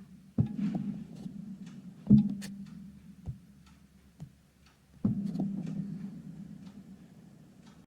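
Three knocks, about half a second, two seconds and five seconds in, each followed by a low ringing hum that fades over a second or two, with a few faint clicks between.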